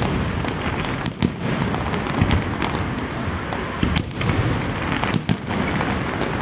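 Fireworks display: a dense, continuous barrage of bangs and crackling, with a few sharper reports standing out.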